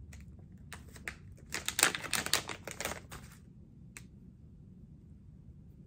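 Packaging of an eyeliner pencil being opened by hand: a quick run of sharp clicks and crinkles, thickest about one and a half to three seconds in, then a single click about four seconds in.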